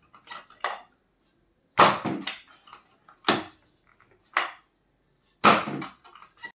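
A series of about six sharp cracks, the loudest about two, three and a half and five and a half seconds in, each dying away quickly.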